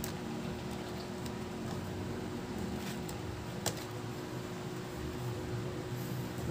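Steady low hum of background noise, with faint clicks as the laptop's base is handled and lifted off its screen lid; the sharpest click is a little after three and a half seconds in.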